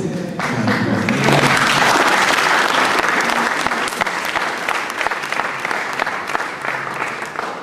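Audience applauding, starting about half a second in, loudest around two seconds, then gradually dying away near the end.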